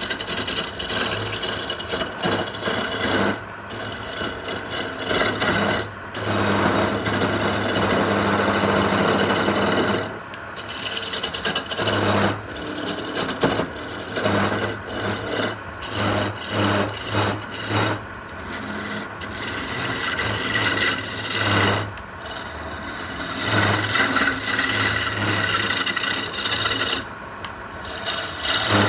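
Abrasive work on wood: a rough rasping, scraping noise in repeated passes of varying length, with short breaks between them.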